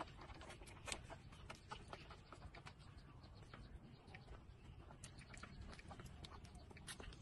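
Puppies suckling at their mother dog's teats: faint, irregular wet clicks and smacks, one sharper click about a second in, over a low steady background rumble.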